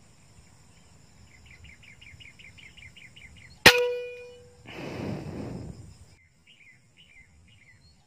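A single scoped air rifle shot about three and a half seconds in: one sharp crack with a short metallic ring. About a second later comes a brief rustling noise, and faint rapid chirping goes on in the background.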